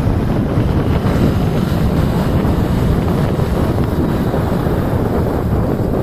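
Loud, steady wind buffeting the microphone on a moving motorcycle, a constant low rush with no clear engine note.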